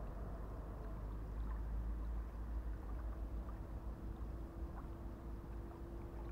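Wind rumbling on the microphone, with a faint steady hum and a few light ticks above it.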